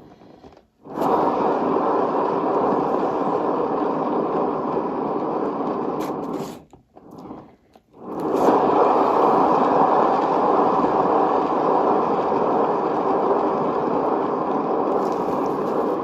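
Turntable spinning a wet acrylic pour painting, running with a steady whirring noise. The noise cuts out briefly twice, near the start and about seven seconds in.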